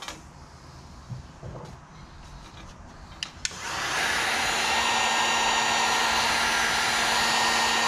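After a couple of sharp clicks, an electric heat gun starts about three and a half seconds in and runs steadily with a faint hum, blowing hot air to shrink heat-shrink tubing over a butt-connector wire splice.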